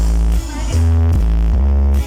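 Loud music with heavy bass notes played through a truck-mounted sound system of twenty subwoofers.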